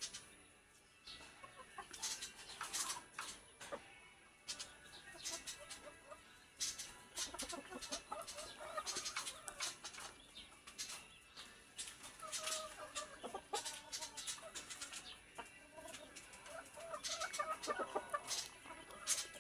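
Chickens clucking: a run of short, repeated clucks and calls with sharp clicky notes in between.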